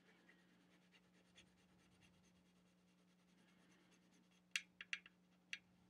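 Near silence with a faint steady hum, then a few quick pencil strokes on paper, about five short scratches, four and a half to five and a half seconds in.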